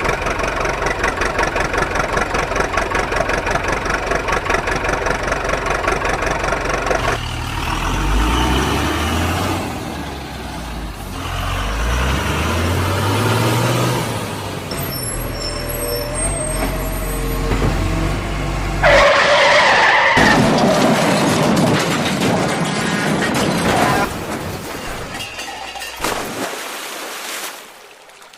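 Heavy vehicle engine sounds: a fast, even engine chug for the first seven seconds, then the engine revving up and down several times. About two-thirds of the way in, a loud rushing noise like an air-brake hiss takes over for several seconds, and the sound drops away near the end.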